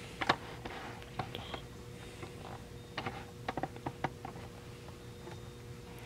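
Scattered faint mechanical clicks from a hand handling a 1950s Remington Quiet Riter portable typewriter, with a quick run of about half a dozen clicks around the middle.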